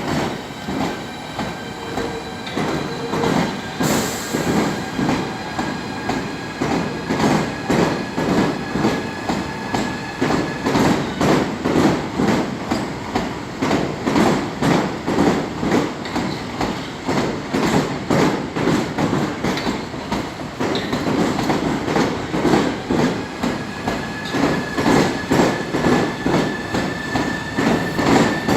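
A train running on the rails, its wheels clacking in a steady repeating rhythm over the rail joints. A thin, high wheel squeal or whine slowly rises in pitch for the first third and again near the end.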